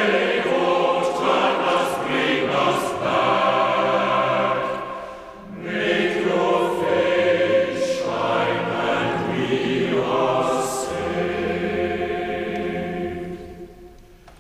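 Choir singing as closing theme music, in long held phrases with a brief lull about five seconds in; the music fades out near the end.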